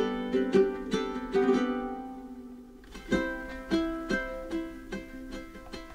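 Background music: a plucked-string tune of quick, separate notes that ring and die away.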